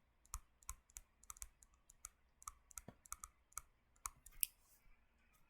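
Faint, irregular clicking and tapping from a computer input device, about four light clicks a second, as a diagram is drawn on screen.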